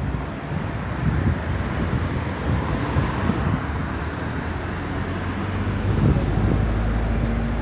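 Road traffic running past on the street, with wind rumbling on the phone's microphone. About six seconds in, a passing vehicle's engine hum comes up and holds steady.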